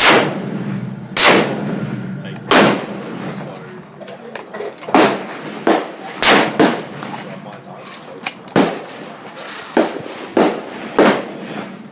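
Rifle shots at a shooting range: about eleven sharp, loud bangs of differing loudness, spaced irregularly. Two come only a fraction of a second apart, so several rifles are firing.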